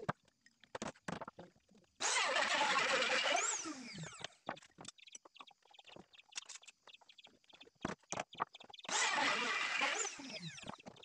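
Handheld electric trim router switched on twice, each time running for a second or two and then winding down, with its pitch falling as it coasts to a stop. Short knocks of wood being handled come in between.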